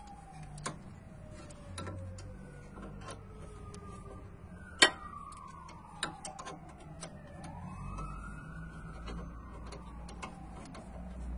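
A siren wails in slow falling and rising sweeps, while a socket wrench tightening the rear brake caliper bolts gives scattered metallic clicks, one sharp knock about five seconds in being the loudest sound.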